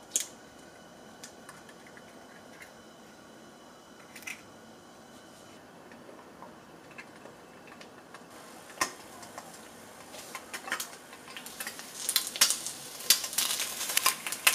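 An egg frying in oil inside a stainless-steel egg ring: crackling and popping that starts about eight seconds in and grows thicker and louder toward the end. Before that, a light clink at the start and another about four seconds in.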